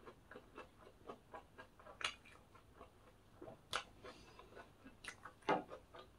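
Faint crisp clicks and crunches of a fried breaded pork cutlet being cut and eaten, with a few louder clicks about two, three and a half, and five seconds in.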